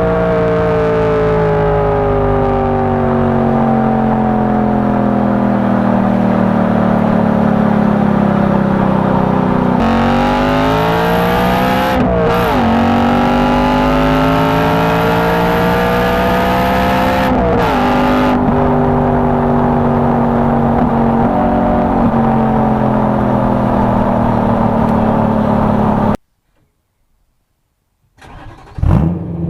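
BMW E92 M3's 4.0-litre V8 engine on the move. Its note sinks slowly for about ten seconds, then climbs under acceleration, with sharp dips at gear changes about twelve and seventeen seconds in, and sinks again. The sound cuts out abruptly a few seconds before the end, then a short, loud rev rises and falls near the end.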